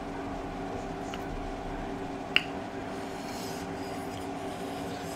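Faint eating sounds, chewing and mouth noises, over a steady room hum, with one sharp click about two seconds in.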